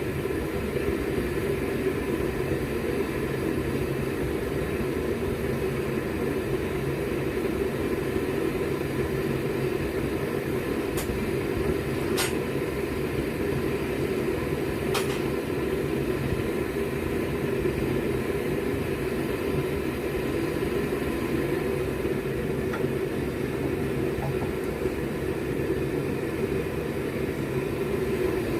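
Homemade two-burner propane forge running, its burners giving a steady, even roar; a few faint metallic clicks sound around the middle.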